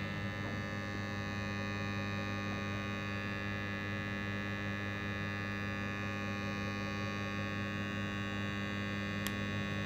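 AC contactor humming steadily with its coil energized and the contacts pulled in, a continuous electrical buzz. A faint tick sounds about nine seconds in.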